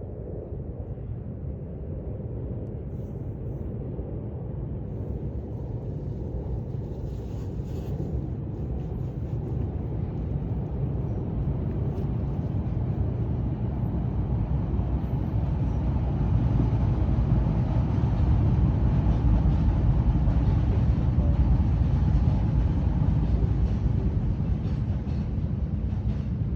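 Steady low rumble that slowly grows louder over the first two-thirds, then eases off a little near the end.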